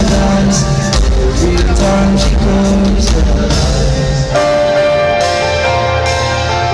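Live pop band music picked up on a phone's microphone: drums and bass for about the first four seconds, then the drum hits stop and held chords carry on.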